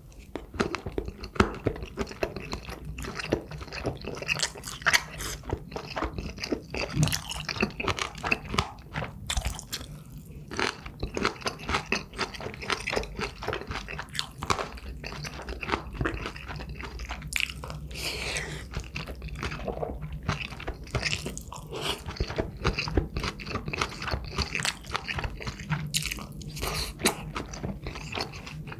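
A person eating dakgalbi, Korean spicy stir-fried chicken, close-miked: chewing and biting, with many irregular sharp mouth clicks, over a faint steady low hum.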